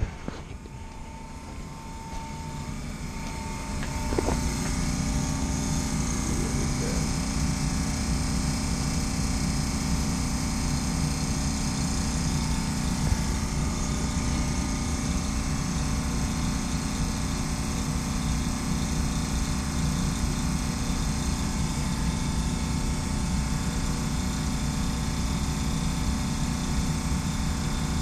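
Mammoth HVAC unit running, a steady hum with rushing air from its blower and compressor, the compressor still on though it should have shut off. The noise swells in over the first four seconds, with a single knock just as it reaches full level.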